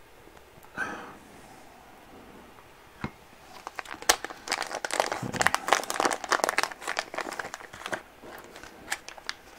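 Plastic parts bag of an RC car kit crinkling and rustling as it is opened and handled, in dense crackly bursts from about three and a half seconds in until about eight seconds, then fainter.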